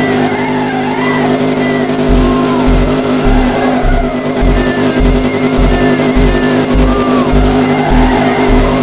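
A Hellcat's supercharged V8 running during a drift, with tyre squeal, under music with a heavy bass beat that comes in about two seconds in at about two beats a second.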